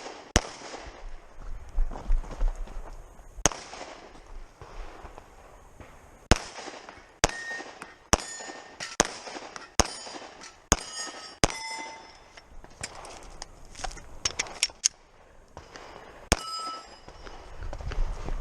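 A string of about twenty pistol shots. They come slowly at first, then in a fast run of shots less than half a second apart in the middle, then a few more. After several of the shots a short metallic ring is heard, steel targets being hit.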